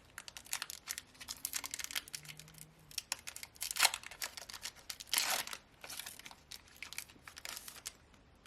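Foil Pokémon TCG booster pack wrapper crinkling as it is torn open, a run of sharp crackles with two louder rips about four and five seconds in.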